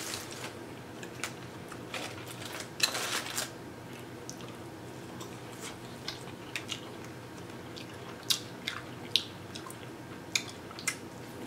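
Aluminium foil crinkling as it is unwrapped from an ear of corn on the cob, loudest about three seconds in. Later come scattered short crisp clicks of biting and chewing the corn kernels close to the mic.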